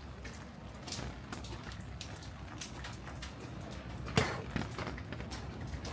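Rain falling, with scattered drops tapping close by over a steady hiss. There is a sharper knock about four seconds in.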